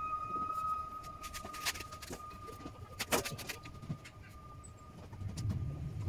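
A few sharp wooden knocks and clicks as a composite horn bow is flexed in a wooden bending jig, over a steady high-pitched tone that fades soon after the start but stays faintly in the background.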